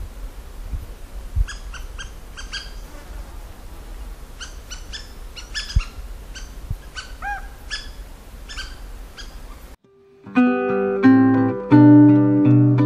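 Birds chirping in short, scattered calls over a steady background noise. About ten seconds in this cuts off suddenly and plucked acoustic guitar music begins.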